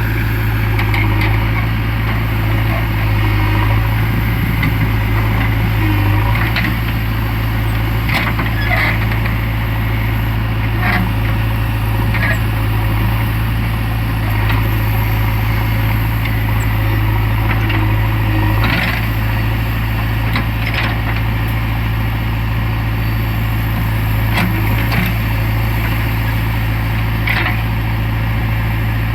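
JCB 3DX backhoe loader's diesel engine running at a steady speed, with a few short knocks or clanks scattered through.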